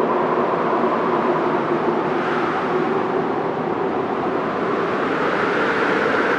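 Steady relaxation noise: an even, unbroken hiss centred in the middle range, its tone drifting slowly.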